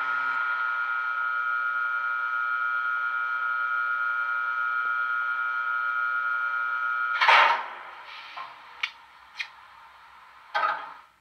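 Digital sound of a BR 193 Vectron electric locomotive played from an ESU LokSound 5 decoder through small sugarcube speakers: the standing locomotive gives a steady electric hum with a high whine. About seven seconds in the hum cuts off with a short loud rush of noise, followed by two sharp clicks and another short burst near the end.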